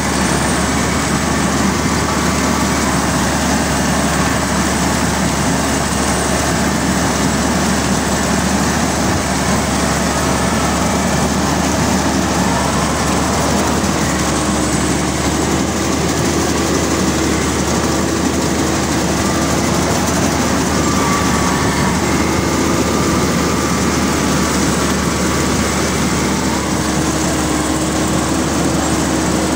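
Rice combine harvester running while cutting a crop: a loud, steady mechanical din from the engine and the turning reel, cutter bar and auger. A faint steady hum joins in about halfway through.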